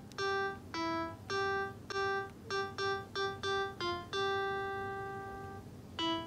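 Background music: a simple melody of single keyboard-like notes, about two or three a second, with one long note held and fading away about four seconds in.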